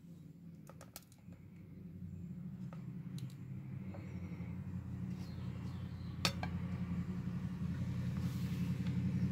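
Small clicks and taps of a plastic K'nex light module being handled and switched on, with a sharper knock about six seconds in as it is set down on a glass plate. Under them runs a low steady hum that grows louder.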